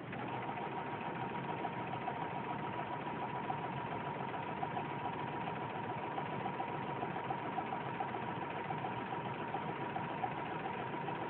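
Electric sewing machine starting up and stitching steadily: a motor whine with a fast, even clatter of the needle mechanism at about seven stitches a second.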